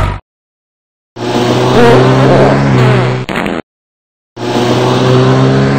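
Two loud, drawn-out fart sounds, each a low steady buzz cut off abruptly, the first about two and a half seconds long and the second shorter, near the end, with dead silence before and between them.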